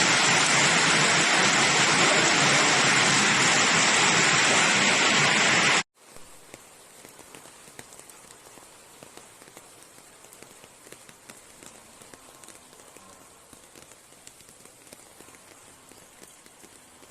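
Heavy rain, a loud, steady hiss, that cuts off abruptly about six seconds in. After it comes much quieter rain with scattered small drops pattering.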